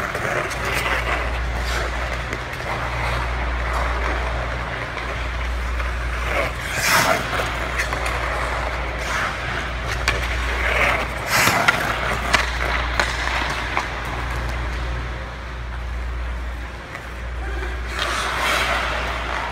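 Hockey skate blades carving and scraping on rink ice, with several louder, longer scrapes from hard stops or sharp turns, over a steady low hum.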